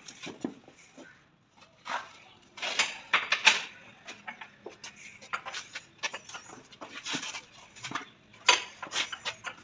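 Irregular metallic clicks and clinks of a long-handled socket wrench turning bolts on a car's front subframe, in quick runs a few seconds apart.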